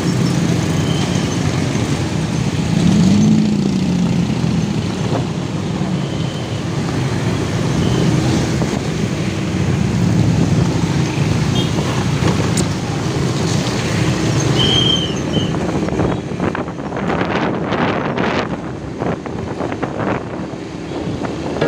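Motorcycle engine running on the move, with the noise of surrounding street traffic; the engine pitch rises and falls briefly about three seconds in.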